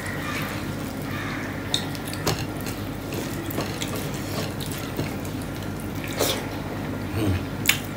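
Fingers squishing and mixing rice with runny dal on a steel plate, a wet, sloppy sound with a few sharp clicks. About six seconds in, a handful of the wet rice is put in the mouth and eaten.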